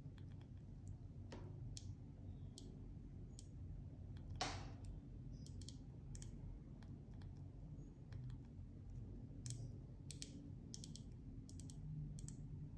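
Faint, irregular clicks from the side crown of an AW12 Pro smartwatch as it is turned to scroll through the menus, some in quick clusters, with one louder click about four and a half seconds in.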